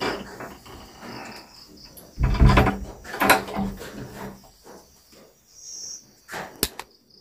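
Crickets chirping steadily, under close rustling and knocks, the loudest about two to three and a half seconds in, and a sharp click near the end.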